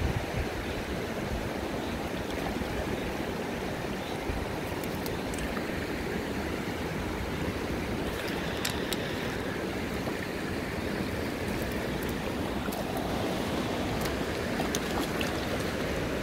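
Shallow mountain river rushing steadily over stones, heard close to the water. A few faint clicks come through here and there.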